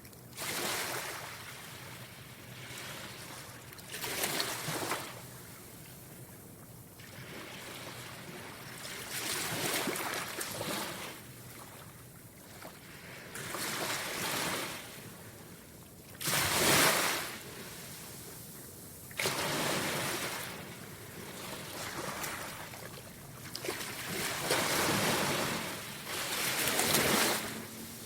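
Ocean waves breaking and washing in, a surge of surf every few seconds that swells and ebbs away, with a few sharper, louder breaks.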